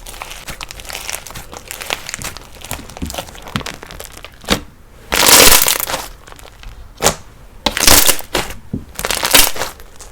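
Slime being kneaded and pressed by hand, with a run of fine crackles and crunches and several loud squishing, popping bursts, the longest about halfway through.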